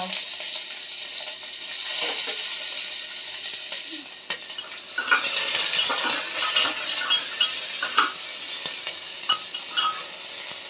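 Chopped onion sizzling in hot oil in a pressure cooker, with a spatula stirring and knocking against the pot, the knocks coming more often from about five seconds in.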